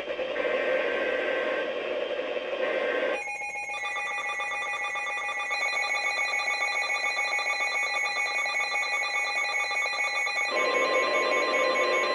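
Emergency alert tones over weather radio. A buzzy electronic sound runs for about three seconds, then a steady, many-toned alert tone sounds for about seven seconds, and the buzzy sound returns near the end.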